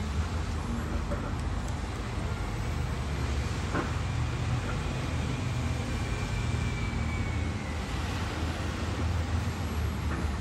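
Steady low engine rumble, with a faint high whine that fades out about seven seconds in.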